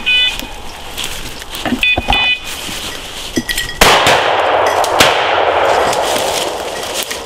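Two shotgun shots a little over a second apart, each followed by a long echo through the woods. Before them, a dog's beeper collar gives two short runs of high beeps, the signal that the dog is on point.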